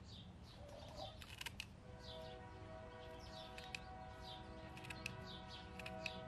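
Tin snips cutting a chicken's flight feathers: a few sharp snips, a quick cluster just over a second in and single ones later, over faint bird chirps repeating every half second or so.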